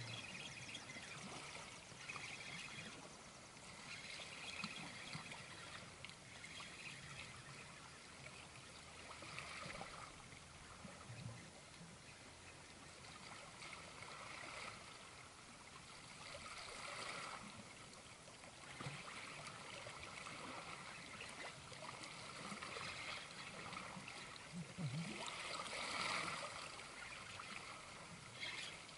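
Sea water washing and trickling against shore rocks, swelling and easing every few seconds.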